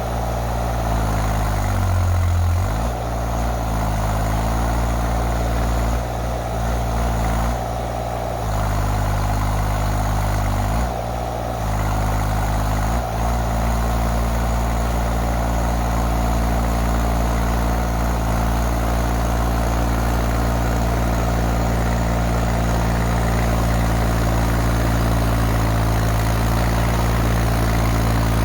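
Two-ton Chinese mini excavator's diesel engine running in the cold. Its speed dips and recovers several times in the first dozen seconds, as when the machine is worked, then holds a steady run.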